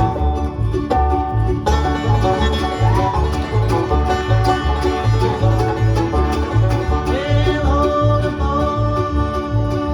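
Bluegrass band playing an instrumental: banjo and guitar picking over a steady bass beat, with a fiddle playing long sliding notes.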